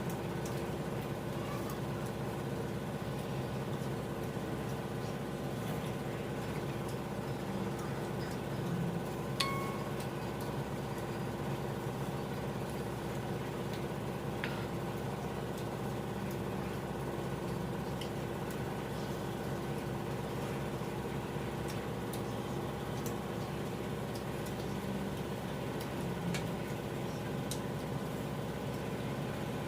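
A steady machine-like hum made of several fixed tones, with a few faint clicks here and there.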